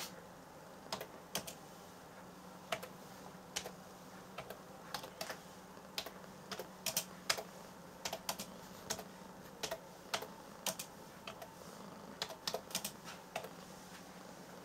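Computer keyboard being typed on: irregular clusters of key clicks, over a faint steady low hum.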